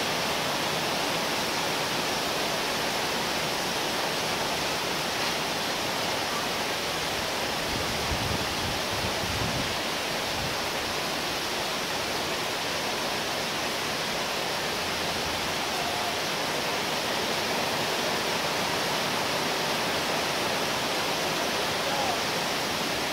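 Heavy thunderstorm downpour: a steady, even hiss of rain, with a brief low rumble about eight to ten seconds in.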